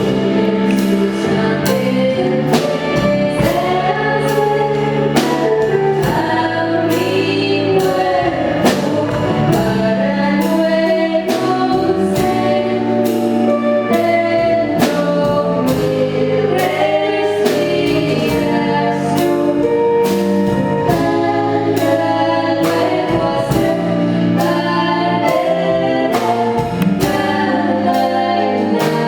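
Music: several voices singing together over instrumental accompaniment with a regular percussive beat.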